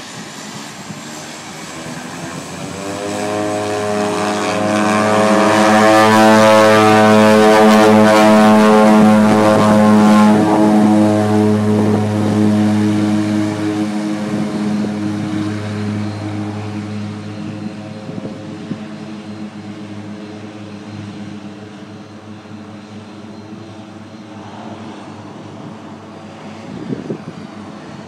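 de Havilland Canada DHC-6 Twin Otter floatplane's twin PT6A turboprops at takeoff power, a steady propeller drone. It builds as the plane runs past on its takeoff run, is loudest a few seconds in, and fades as it pulls away.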